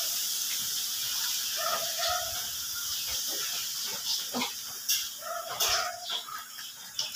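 Water sloshing and splashing in a steel basin as a slaughtered rabbit carcass is soaked and rubbed by hand, over a steady hiss. Two short animal calls sound in the background, about two seconds in and again near six seconds.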